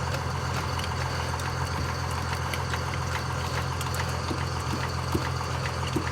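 An engine idling steadily, a low even hum with a few faint ticks over it.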